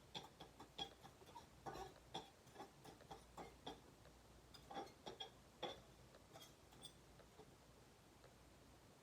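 Faint, irregular small clicks and taps from small tools and parts being handled at a soldering bench, a few with a light metallic ring. They stop about two seconds before the end.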